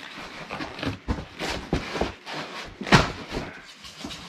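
Styrofoam packing and a cardboard box being handled: rubbing, scraping and irregular knocks, with one sharp knock about three seconds in.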